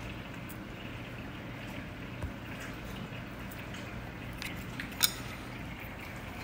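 Cat chewing a bite of beef: soft wet smacking and small clicks over a steady low hum, with one sharp click about five seconds in.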